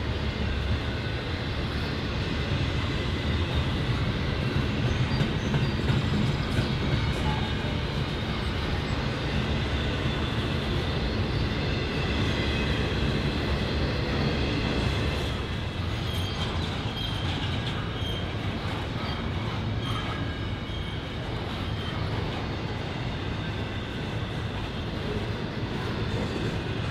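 Freight train cars of an eastbound Norfolk Southern intermodal train rolling steadily past, with a continuous rumble and wheel clatter and a faint high wheel squeal.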